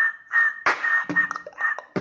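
Beatboxing with a whistle: one steady high whistled note held throughout, over a quick beat of percussive mouth sounds, about three hits a second.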